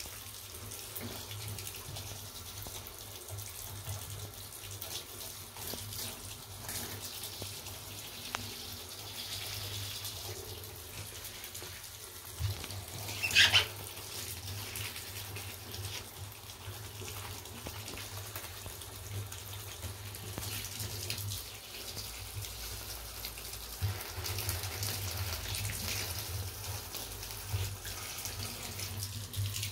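Shower hose spraying a thin stream of water onto wet black Nike Air Max Tn sneakers in a bathtub: a steady splashing hiss. A short high-pitched squeak comes a little under halfway through.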